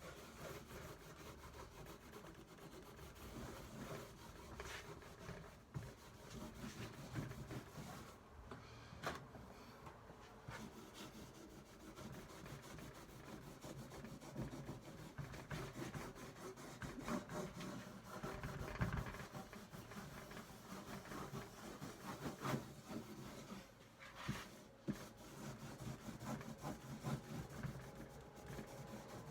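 Cloth rubbing over the waxed wood of an old toolbox, buffing it in irregular strokes, with small knocks of wood in between.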